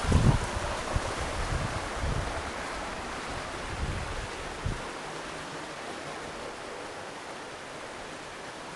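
Steady rushing hiss of a creek flowing through a narrow rock gorge. Low rumbling buffets and knocks in the first few seconds stop about five seconds in, leaving only the water.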